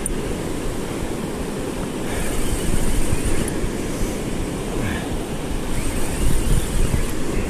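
Surf breaking and washing on the shore, with wind buffeting the microphone.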